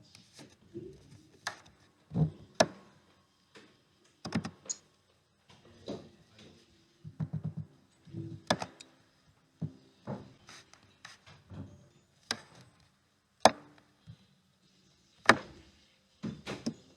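Irregular sharp clicks and knocks, about a dozen, some with a dull thud beneath: small Lego Technic plastic parts being handled and set down.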